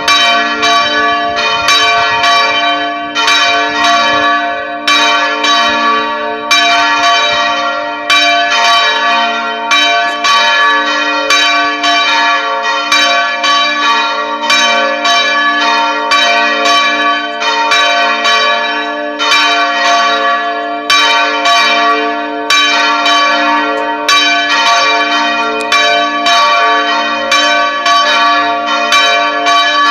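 Church bells ringing continuously from the belfry, struck in a quick, uneven run of about two or three strokes a second, each stroke's ring overlapping the next into a steady hum.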